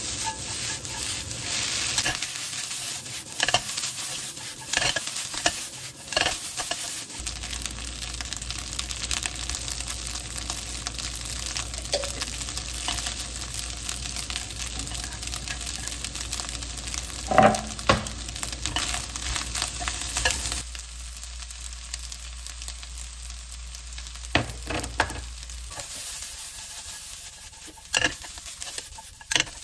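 Fried rice sizzling in a hot pan as it is stir-fried, the spatula scraping and clacking against the pan, with one louder ringing clank about halfway through. The sizzle grows quieter about two-thirds of the way in.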